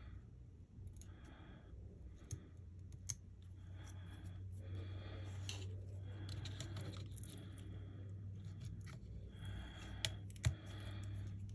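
Repeated scratching strokes of a tool scraping old battery adhesive residue inside an iPhone 12 Pro's housing, each stroke about half a second to a second long. There are a few sharp clicks, the loudest about ten seconds in, over a steady low hum.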